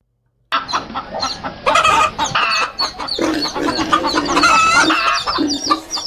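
A flock of hens clucking together, many overlapping calls, starting about half a second in and cutting off abruptly at the end.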